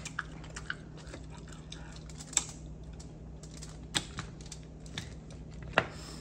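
Mukbang eating sounds: black mussel shells clicking and clacking as they are handled and pried apart by hand, with a few sharper clicks a second or two apart among smaller ticks.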